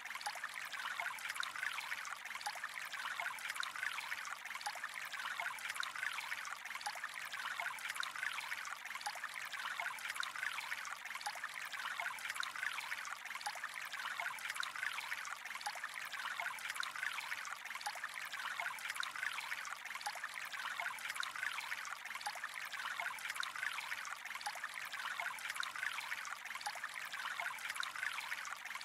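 Gently trickling water flowing steadily, a constant fine patter of small splashes without pause.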